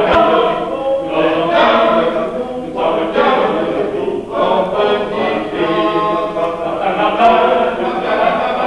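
Men's choir singing, several voices together in sustained phrases with brief breaks between them.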